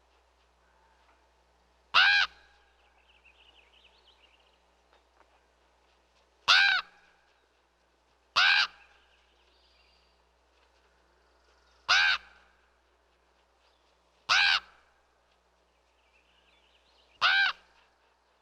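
A crow cawing: six single short caws, spaced two to four seconds apart, with faint bird chirps in the background between them.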